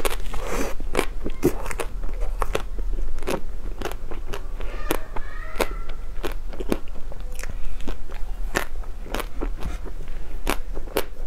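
A person chewing a crisp black food close to a clip-on microphone. Irregular crisp crunches come a few times a second.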